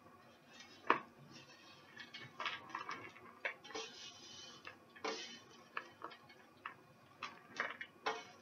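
Dry homemade granola clusters poured into a tall plastic cereal canister, rattling and clicking against the plastic in irregular bursts, with one sharp knock about a second in.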